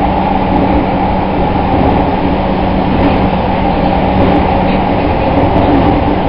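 Interior running sound of a Tokyu 5050 series 4000 subseries electric train car in an underground subway tunnel: a steady rumble of wheels on rail with a constant low hum, the train running along at an even speed.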